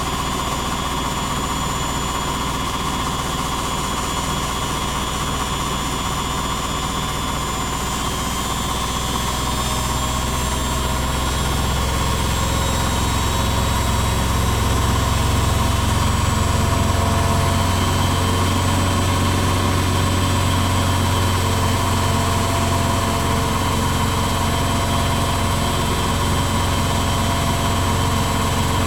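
Beko WTB841R2W washing machine spinning: a steady motor hum and whine whose low drone climbs in pitch and gets a little louder about a third of the way in as the drum speeds up.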